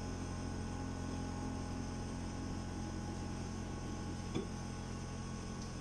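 Sirona inLab MC XL dental milling unit humming steadily while it runs its automatic calibration, with one short click about four and a half seconds in.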